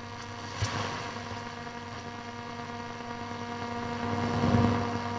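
Telefunken Operette 8 tube radio's speaker giving out a steady hum and static as the medium-wave band is tuned with no station coming in. There is a click a little over half a second in, and the noise swells about four seconds in before settling.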